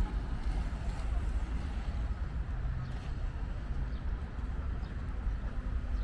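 Outdoor city ambience: a steady low rumble of distant traffic.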